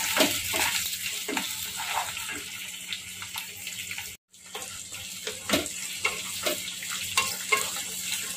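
Onion and capsicum chunks sizzling in oil in a kadai as a wooden spatula stirs them, with scattered scrapes and taps of the spatula against the pan. The sound cuts out briefly about four seconds in.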